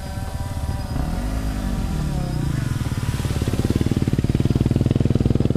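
Off-road motorcycle engine running with a fast pulsing beat; its pitch swings up and back down once about a second in, then settles and grows louder over the last couple of seconds.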